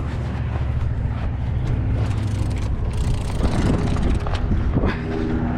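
An engine running with a steady low hum; a second, higher set of steady tones joins about three and a half seconds in.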